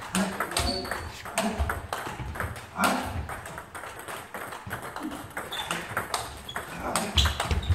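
Table tennis knock-up: the plastic ball clicking back and forth off bats and table in a quick run of sharp ticks.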